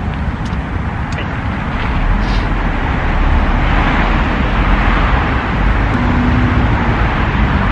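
Steady rumble of road traffic, growing louder about two seconds in, as if a vehicle is approaching or passing.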